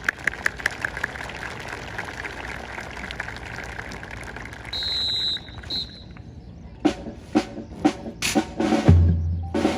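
Drum-backed music: a run of quick, crisp clicks over the first few seconds, a brief high tone about five seconds in, then loud drum hits from about seven seconds, with a deep bass drum coming in near the end.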